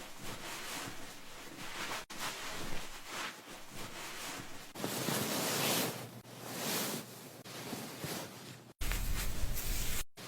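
Hair-washing sounds: hands scrubbing and rubbing lathered wet hair against the scalp, a scratchy rustling noise. It is broken by abrupt cuts about two seconds in and near the end.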